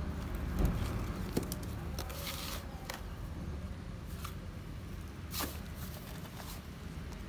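Loose potting soil being scooped and pressed by hand and trowel into a plastic bonsai pot: irregular soft scrapes, rustles and crumbling crackles.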